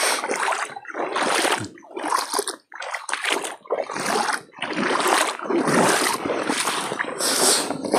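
Footsteps wading through shallow water, splashing and sloshing at a brisk walking pace of about two steps a second.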